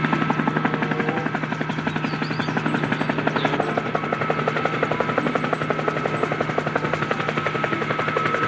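Helicopter rotor sound effect: a rapid, even chopping beat over a steady hum.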